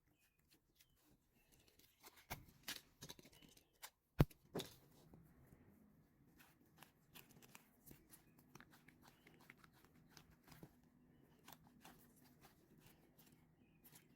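Faint handling noises of a squishy toy being squeezed in the hands: soft rustles and light taps, with one sharp click about four seconds in.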